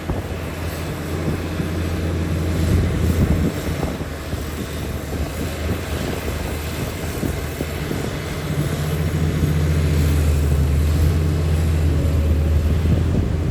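Heavy earthmoving machine's diesel engine running, a steady low drone that grows louder about two-thirds of the way through.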